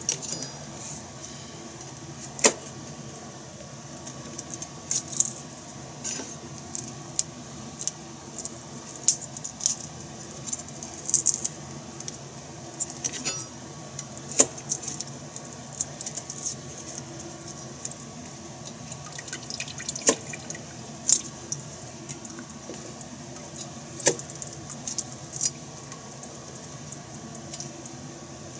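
Garlic cloves being peeled with a kitchen knife on a cutting board: irregular sharp clicks and ticks of the blade and fingers against the papery skins and the board, over a steady low hum.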